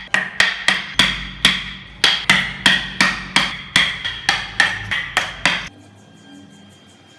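Hammer striking repeatedly in woodworking, about three blows a second, each with a short metallic ring; the blows stop a little before two-thirds of the way through.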